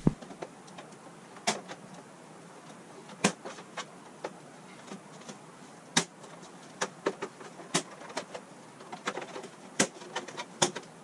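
Plastic rear cover of a curved LED TV being pried and lifted off: about a dozen sharp snaps and clicks at irregular intervals as its retaining clips and tabs let go and the plastic panel shifts.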